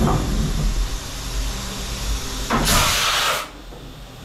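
Haas VF2 SS CNC vertical mill running at the end of its program, with a low steady hum. About two and a half seconds in, a loud hiss lasts nearly a second, then the machine goes quieter.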